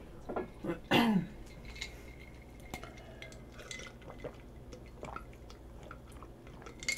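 Quiet drinking from a glass mug: small gulps and faint clicks of glass. A short murmur of voice comes about a second in.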